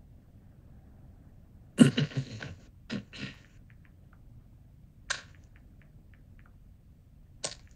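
A person coughs several times about two seconds in, a few rough bursts over about a second and a half, followed later by two short sharp sounds, over faint small ticks.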